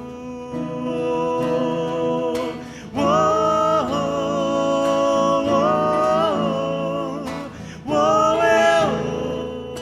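Acoustic guitar accompaniment with a voice singing long, wordless held notes that glide between pitches, in three phrases.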